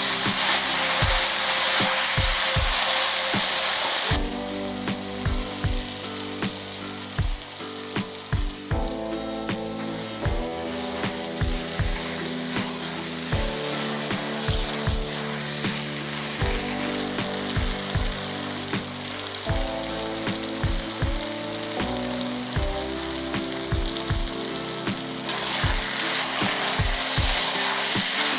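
Glass noodles and vegetables sizzling in a hot oiled wok as they are stir-fried and tossed with tongs, cooking off the last moisture. The sizzle is loud for the first few seconds, softer through the middle and louder again near the end.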